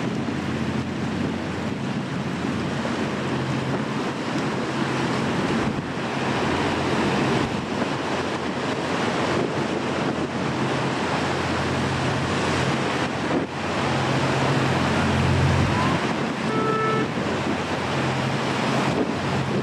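Wind buffeting the microphone and surf breaking over a rocky tidal flat, over the low drone of a high-speed catamaran passenger ferry's engines as it approaches at speed.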